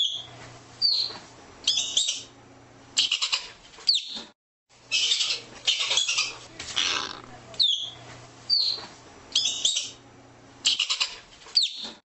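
Arctic ground squirrel calling: short high chirps that sweep downward alternate with harsh, noisy chatters, about one call a second.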